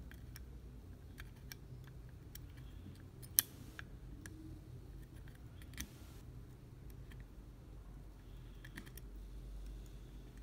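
Small sharp metallic clicks and taps, irregular and scattered, from steel tweezers and a soldering iron tip against the components and pads of a PS4 controller's circuit board. The loudest click, about a third of the way in, is followed by a brief hiss. A steady low hum runs underneath.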